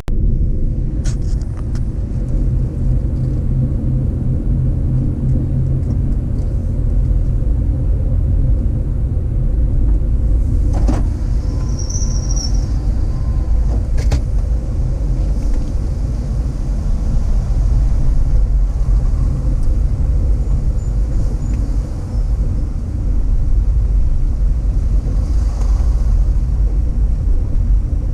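Car driving, with a steady low rumble of engine and road noise. A couple of sharp clicks come about 11 and 14 seconds in.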